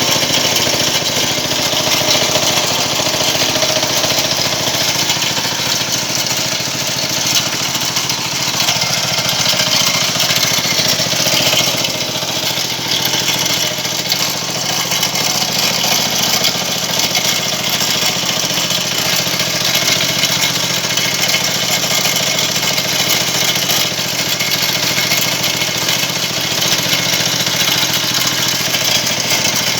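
A small engine running steadily at an even speed while wire rope is wound onto a winch drum.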